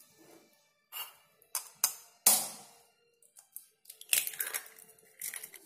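A kitchen knife tapping a raw egg to crack its shell open over a stainless steel bowl, with metal clinks: a series of sharp taps spaced unevenly, the loudest about two seconds in, and a quick cluster of taps about four seconds in.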